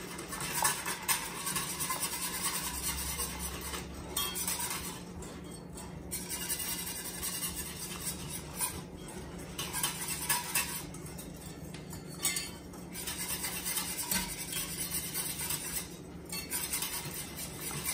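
Wire whisk beating milk and cornmeal in a stainless steel saucier: a fast, steady scraping and clinking of the wires against the pan, with a few brief pauses.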